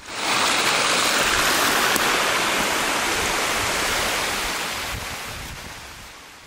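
A steady rushing noise, like running water or wind, that starts abruptly, holds for about four seconds and then fades out.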